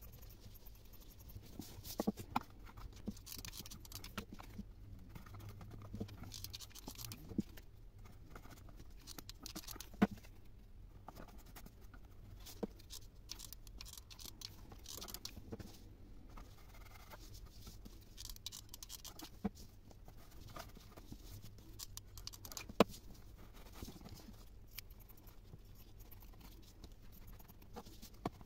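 Rustling of a non-woven plastic shopping bag being handled and cut with scissors, with scattered sharp clicks and taps of the tools.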